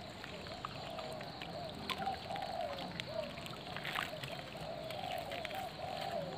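Water trickling and splashing, with scattered sharp clicks, over a wavering call that rises and falls again and again.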